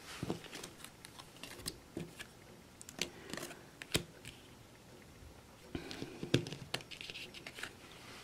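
Lenormand cards being drawn from a small deck and laid down on a cloth-covered spread: a string of light clicks and slaps as cards are flicked and set down, the sharpest about four seconds in, with soft sliding and rustling between.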